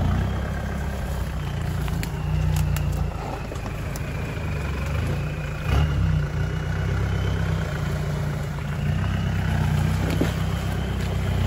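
Engine of a lifted first-generation Mitsubishi Pajero Sport running at low, fairly steady revs as the 4x4 crawls down off a grass bank into a muddy water hole, the note swelling slightly a couple of times.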